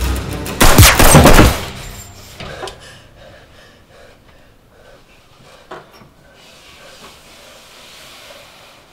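Gunshots: a loud burst of about a second with three close peaks, then a dying ring. After it there is only a faint low haze and a single short click near the end.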